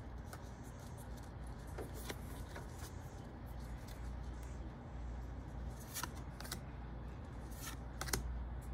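A stack of Pokémon trading cards being flipped through one card at a time, with soft sliding and rubbing of card on card and a few sharp flicks as cards snap off the pile, over a low steady hum.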